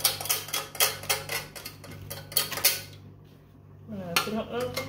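Metal fork tapping and scraping inside a small stainless steel grater held over a steel mixing bowl, working out grated lime zest: a quick run of sharp metallic clinks over the first two and a half seconds, then it stops. A voice is heard near the end.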